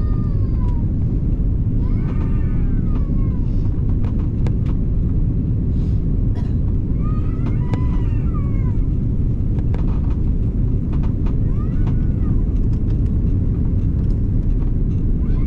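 Steady low roar of an airliner cabin, with a baby crying now and then over it: a few short wails that rise and fall in pitch.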